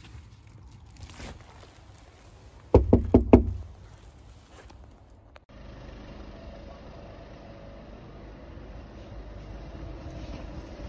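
About four quick, loud knocks on a front door, a delivery rider knocking to hand over an order. After that, a steady low background hum.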